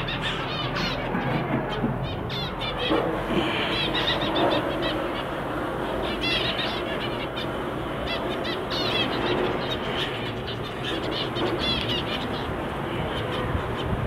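A cage of zebra finches, white and grey, calling: many short, high chirps in quick clusters, over a steady background hiss.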